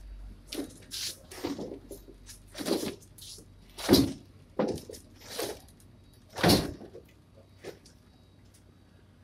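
Irregular knocks and scrapes from a wooden shipping crate being handled on a small pickup's cargo bed as a man climbs up onto it, the loudest about four and six and a half seconds in.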